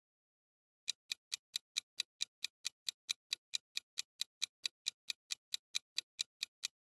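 Countdown-timer ticking sound effect: crisp, even clock ticks at about four to five a second, starting about a second in.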